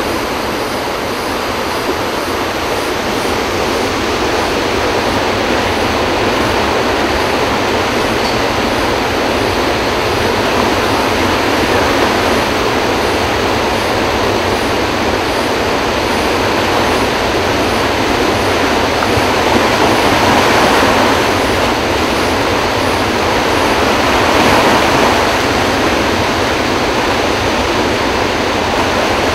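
Floodwater rushing through a flood-control dam's open spillway gates during a high release: a loud, steady, unbroken rush of water.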